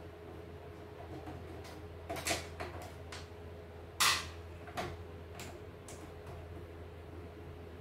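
A screwdriver and small parts clicking and knocking against a CNY E900 embroidery machine and the wooden bench while the machine is being taken apart: a cluster of light clicks about two seconds in, a louder knock about four seconds in, then a few lighter taps, over a steady low hum.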